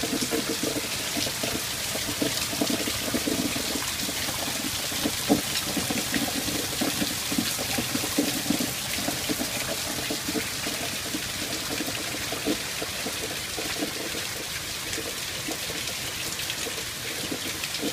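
Heavy rain falling steadily on the grass, pavement and garden, a constant hiss with pattering drops.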